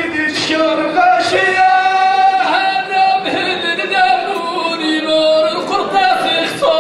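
A man singing Middle Atlas Amazigh poetry in the inchaden style. He holds long notes that waver and bend at the ends of phrases, with short breaks between them.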